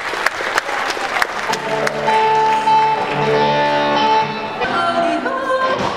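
Music: sharp repeated strokes for the first second and a half, then long held notes, changing again near the end.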